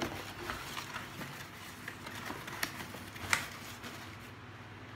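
Packaging and parcel items being handled: rustling with scattered small clicks and taps, and one sharper click about three seconds in.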